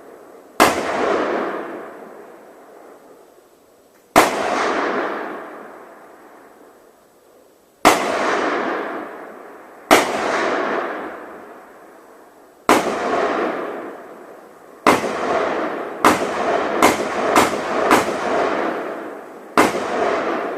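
An AR-15 rifle firing .223 rounds at an ice-covered pond: about eleven sharp shots, each followed by a long ringing tail that fades over a second or two. The shots come a few seconds apart at first, then quicker, under a second apart, near the end.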